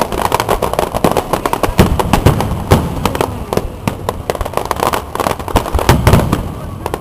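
Aerial fireworks going off: a rapid, dense crackle of many sharp pops, with a few deeper booms among them.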